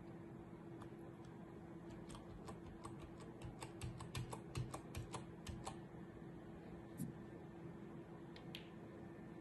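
Computer keyboard being typed on: a run of light, quick clicks, about five a second, for a few seconds, over a steady low hum. A single sharper click comes about seven seconds in.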